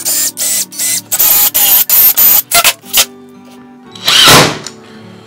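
Cordless drill driving screws through a hardwood runner into a table-saw sled base, in a quick string of short bursts, then one longer burst near the end. Background acoustic guitar music plays under it.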